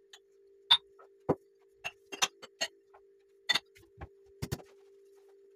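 Dishes and kitchenware clinking and knocking as they are handled: about a dozen sharp clinks at irregular intervals, over a faint steady hum.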